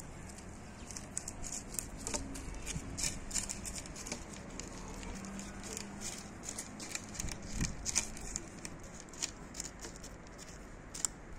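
Russian blue kitten eating from a bowl: many quick, irregular small clicks of chewing and lapping.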